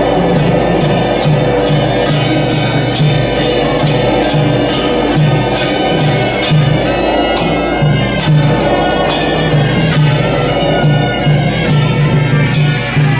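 Temple procession band music: brass hand cymbals clashing in a steady beat about two to three times a second, over a low drum pulse and a reedy melody.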